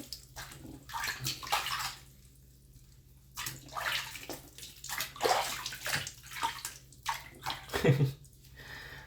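Bath water splashing and sloshing in short irregular bursts as a puppy is washed in a tub, with a brief lull about two seconds in before the splashing resumes.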